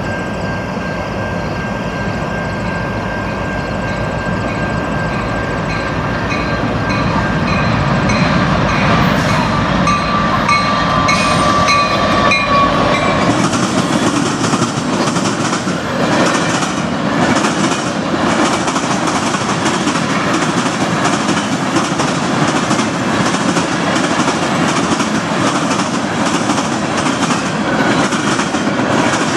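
Level-crossing bells ringing as a CN freight train's diesel locomotives approach and pass, the train noise growing louder. From about halfway in, freight cars roll by with a steady, rhythmic clickety-clack of wheels over the rail joints.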